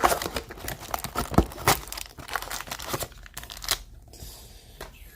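Wrapper of a 2020-21 Upper Deck Allure hockey card pack being torn open and crinkled in quick, irregular crackles.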